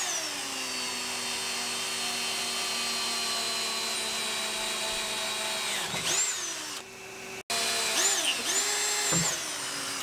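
Electric drill running steadily as its bit bores through a 3D-printed recycled carbon-fibre ABS longboard deck. The motor winds down about six seconds in, then runs again in two short bursts.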